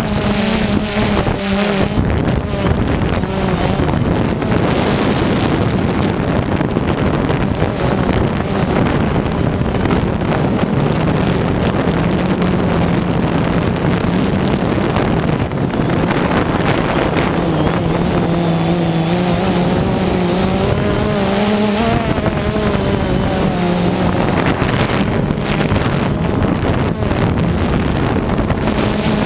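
DJI Phantom quadcopter's motors and propellers buzzing steadily close to the camera, the pitch sagging and rising again as the motors change speed, with wind noise on the microphone.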